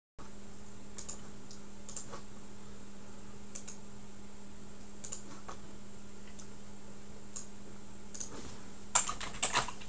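Computer keyboard keys clicking: scattered single keystrokes, then a quick flurry of typing about nine seconds in, over a steady low electrical hum.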